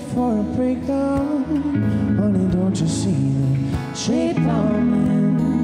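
Live band music: a strummed Martin steel-string acoustic guitar with a Stratocaster electric guitar, and a wavering, sliding melody line over them without clear words.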